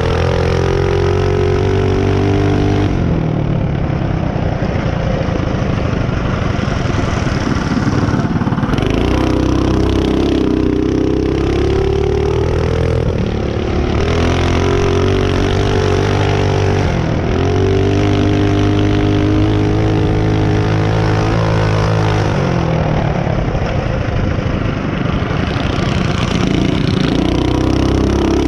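Mini bike's small engine running hard under throttle. Its note drops away and picks back up several times as the throttle is eased off and opened again, with one quick dip and recovery in pitch about two-thirds of the way through.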